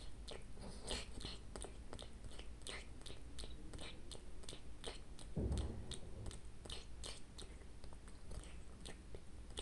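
A cat licking syrup from a dropper and smacking its lips: quick wet mouth clicks, about three a second. One low thump about five and a half seconds in.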